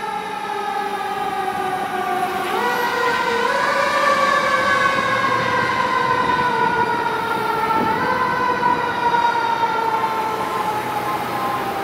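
Fire engine's mechanical siren winding down, its pitch falling slowly, then spun back up in short steps about two and a half, three and a half and eight seconds in.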